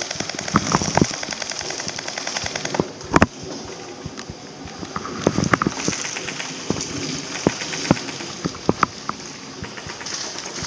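Airsoft guns firing: a rapid full-auto train of clicking shots, one loud sharp crack about three seconds in, then scattered single shots.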